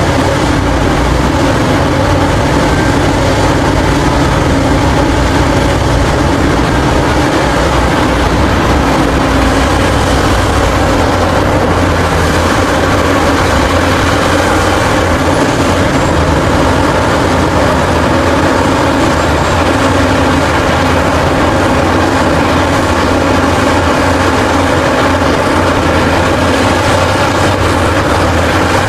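Caterpillar 6015B hydraulic mining excavator's diesel engine running steadily under heavy working load as it loads dump trucks: a loud, unbroken machine sound with no let-up.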